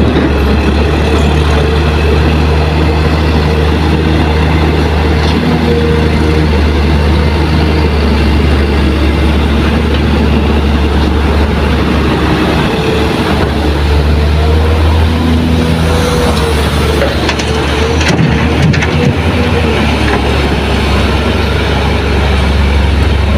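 Diesel engines of dump trucks and an excavator running steadily: a loud, deep, continuous drone whose pitch wavers slightly as the engines change speed.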